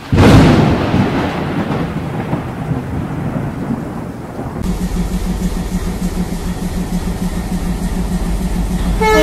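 An intro sound effect: a loud boom that dies away into a rumble over about four seconds. Then a toy model train runs along its track with a steady hum and a fast, even clatter, and a train horn sounds near the end.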